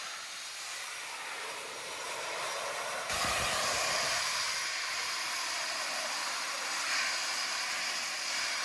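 Gravity jet suit's small jet turbines running with a steady, loud rushing hiss and whine. The sound gets suddenly louder about three seconds in.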